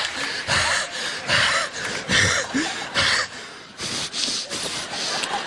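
A man breathing hard, short noisy breaths about twice a second, like panting after exertion.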